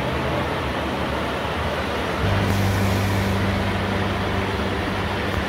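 Steady rush of a river pouring over a low weir's stone ledge and churning in the pool below, a heavy flow.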